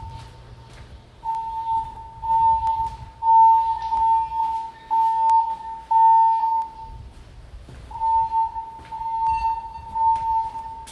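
Building fire alarm voice evacuation system sounding its alert tone between spoken announcements. It is a steady beep a little under 1 kHz, repeated about once a second, with a brief break about two-thirds of the way through. The system is in alarm because a smoke detector was set off in a test.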